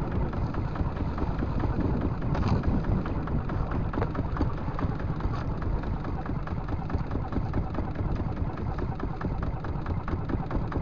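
Kubota diesel boat engine running steadily with a rapid, even beat, heard close up.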